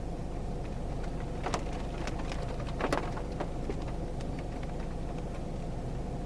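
Steady low hum of a vehicle engine idling, heard from inside the car, with a scatter of light sharp taps, mostly in the middle seconds.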